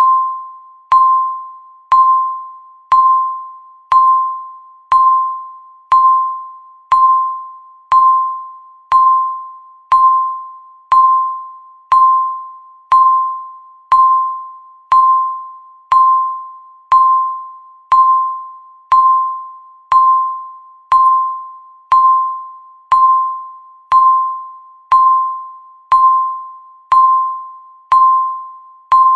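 Countdown timer beep: one clear, pitched ding struck once every second, each starting sharply and fading away before the next.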